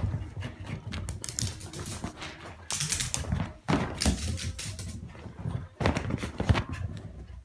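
A shih tzu's paws running and skidding across a wooden floor and rug: a fast, uneven run of claw clicks, scuffs and thumps, with louder scrambles about three, four and six seconds in.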